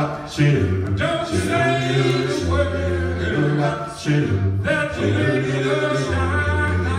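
Five-man a cappella doo-wop group singing in close harmony, a deep bass voice stepping through held low notes under the lead and backing voices.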